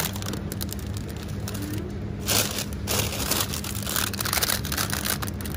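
Plastic wrappers of frozen ice cream bars crinkling and rustling as hands pick through them in a freezer chest, with louder rustles about two and a half and three seconds in. A steady low hum runs underneath.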